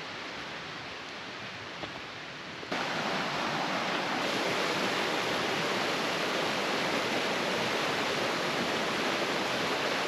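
Steady rushing of creek water, jumping abruptly louder about three seconds in.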